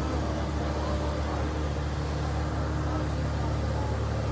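Embraer regional jet's twin turbofan engines running at low power as the airliner taxis, a steady low hum with a constant drone.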